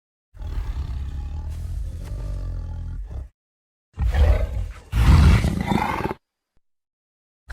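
Film monster roar sound effects: one drawn-out growling roar of about three seconds, a pause, then two shorter roars back to back, the second the loudest. Each one cuts off cleanly into silence.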